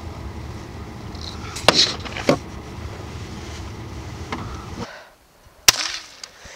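Low rumble of a vehicle driving, with two sharp knocks, cutting off suddenly; then a single shotgun shot, followed by a short tone that rises and falls.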